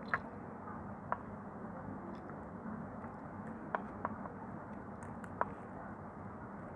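A bar of soap being carved with a blade, giving a few short, sharp crackling clicks spread over several seconds, against a steady background hiss.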